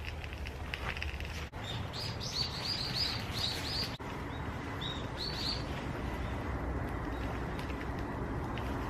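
A bird chirping in quick runs of short, high notes, one run from about a second and a half in to about four seconds and a shorter one about five seconds in, over a steady low background rumble.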